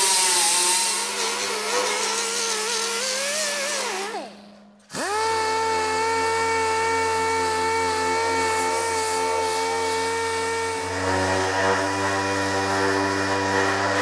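High-speed grinder working on welded sheet metal. Its pitch wavers under load, then it shuts off and winds down about four seconds in. A moment later it starts again and quickly spins up to a steady whine, and near the end it changes tone as it bears on the metal again.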